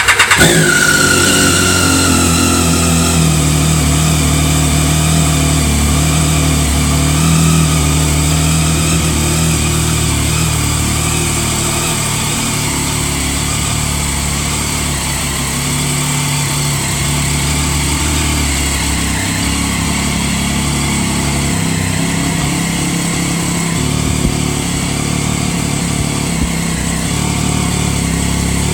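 Triumph Daytona 675's three-cylinder engine catching right at the start and settling into a steady idle through an aftermarket TOR exhaust can.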